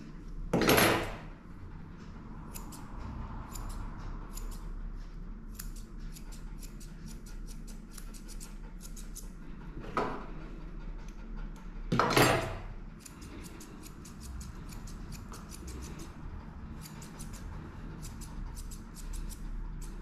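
Grooming scissors snipping repeatedly, short sharp clicks as the hair on a Maltese's tail is trimmed. Three louder, sudden noises, each under a second, come near the start, about ten seconds in and about twelve seconds in.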